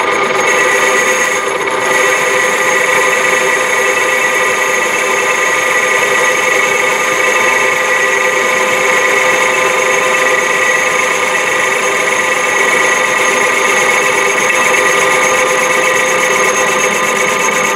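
Metal lathe running and turning a cast aluminium blank, the tool cutting across the face of the part: a steady machine sound with several held pitches over an even hiss.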